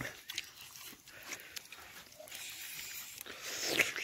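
Mouth noises of people eating roasted chicken with their fingers: wet smacking and sucking with scattered small clicks, and a louder slurp just before the end.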